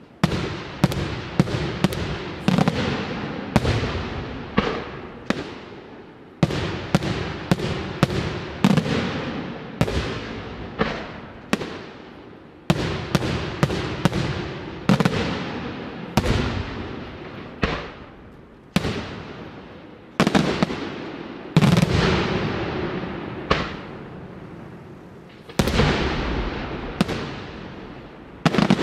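Daytime fireworks aerial shells bursting in a rapid, irregular series of sharp bangs, each trailing off in a rolling echo, about one or two a second. There is a short lull near the end before a fresh volley.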